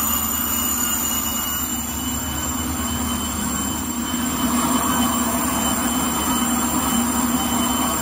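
Kitchen-towel rewinding and edge-embossing machine running at steady speed: a constant mechanical hum with several steady high-pitched whines from its drives.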